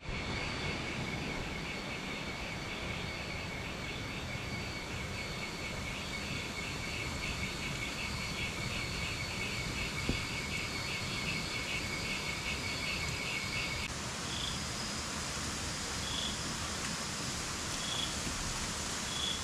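Night insects, cricket-like, calling: a fast, evenly pulsing high trill that cuts off about two-thirds of the way through, then single short chirps every couple of seconds, over a steady background hiss.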